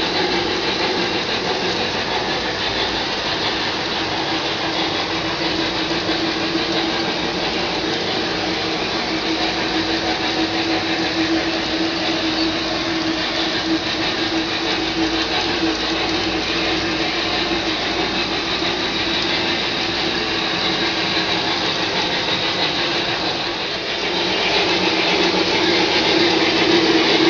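Lionel O-gauge model freight cars rolling over three-rail track with a steady rumble and clatter. About three-quarters of the way through the sound grows louder as the model steam locomotive draws near.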